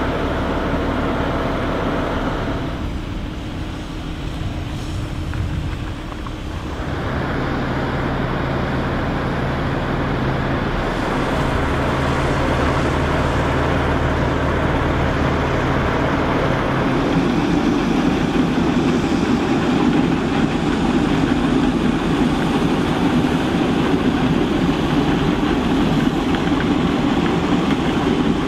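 Heavy diesel machinery running steadily: a low, even drone whose tone shifts a few times and grows fuller and louder about two-thirds of the way through.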